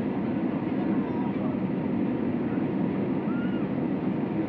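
Steady cabin noise inside an Airbus A321 in flight on descent: a continuous, even rush of airflow and engine noise with a low-pitched weight to it.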